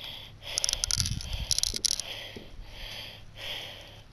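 Copper BBs being fed one at a time into a BB gun by hand: a cluster of small clicks and rattles between about half a second and two seconds in, then soft rustling handling sounds.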